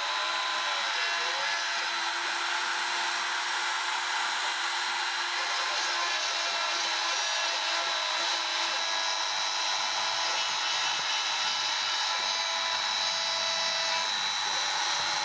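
A 550-watt router spindle on a 3040 CNC router running steadily with a high whine, while the NEMA 23 stepper motors driving the axes hum in pitches that rise and fall as the machine moves.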